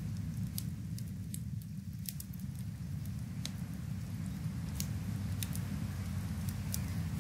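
Rain and fireplace ambience: a steady low rumble under irregular sharp crackles and pops of a wood fire.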